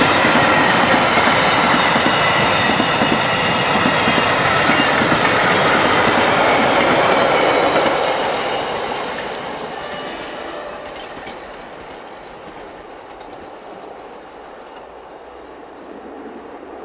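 Rhaetian Railway metre-gauge train's coaches and wagons rolling past, wheels clattering over the rail joints with high squealing tones. After about eight seconds the sound fades as the end of the train moves away.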